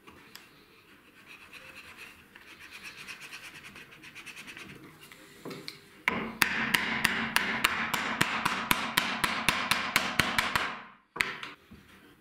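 Rubber mallet rapidly tapping a wooden strip down into a dado, about four or five strikes a second for nearly five seconds, stopping abruptly. Before the strikes there is fainter rubbing as the wood is worked into the slot.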